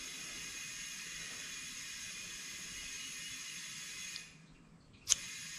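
Compressed air hissing steadily into a tire through a trigger air chuck with an inflator gauge, raising the tire's pressure toward 30 psi. The hiss stops a little after four seconds as the trigger is let go, then starts again with a click about a second later.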